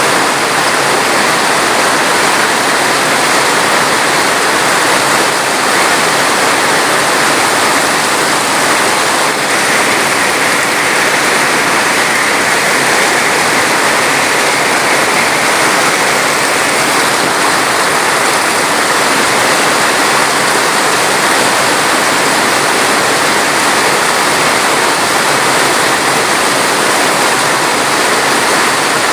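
Steady rushing water: a dense, unbroken hiss that stays the same all through, with no drips, splashes or other distinct events.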